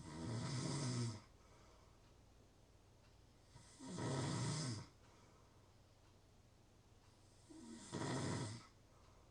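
A sleeping person snoring: three snores about four seconds apart, each lasting about a second.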